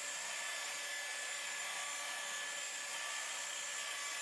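Electric paint buffer running at a steady speed with its pad on a car's quarter panel, machine polishing out scratches and scuffs in the paint. A constant whirring hum with a few steady whining tones.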